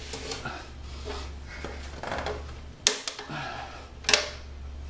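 Steel tire levers scraping and clinking against a motorcycle wheel rim while the tire bead is pried on bit by bit, with two sharp metallic clicks about three and four seconds in, over a steady low hum.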